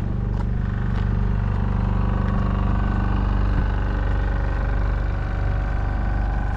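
An engine running steadily at a constant speed, a loud even hum that does not rise or fall.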